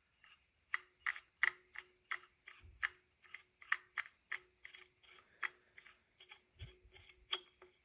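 Hand tool clicking as it is turned in a threaded bolt hole in an ebike hub, about three sharp clicks a second with a faint ring under them and a few dull thuds.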